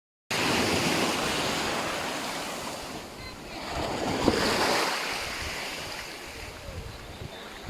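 Sea waves washing in, a steady rush that swells to a peak about halfway through and then eases off.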